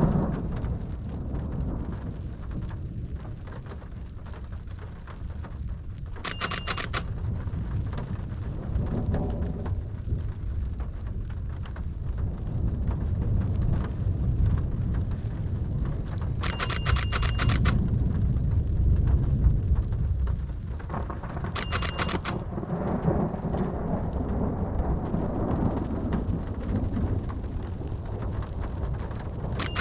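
Thunder rumbling low and long, swelling to its loudest a little past the middle, over steady falling rain. A few brief bursts of fast ticking come and go.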